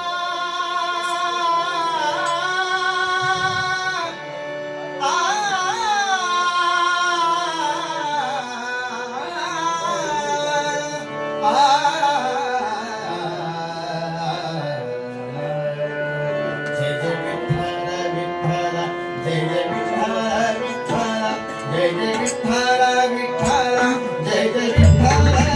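Devotional Marathi bhajan: a singer's slow, ornamented opening melody over harmonium, with a drum coming in near the end.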